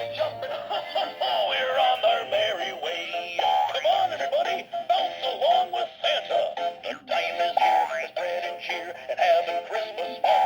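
Animated Santa Claus toy singing a Christmas song through its small built-in speaker, a thin, tinny voice and tune with almost no bass. Its worn inner mechanism no longer makes it jump, so it only sings.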